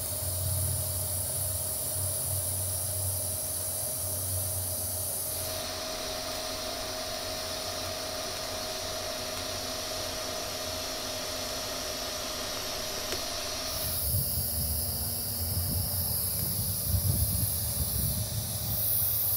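DC TIG welding arc hissing steadily from an Everlast PowerTIG 210EXT set to about 110 amps, joining carbon steel square tube to galvanized sheet metal. The hiss changes tone about five seconds in and again about fourteen seconds in, where a low rumble joins it.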